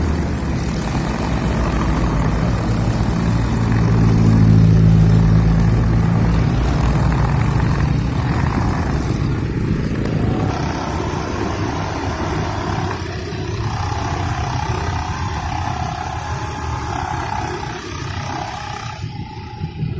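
Four-stroke Honda GX35 brush cutter engine running continuously while cutting grass with nylon trimmer line. It is loudest about four to five seconds in, then settles into a lighter, higher-pitched run.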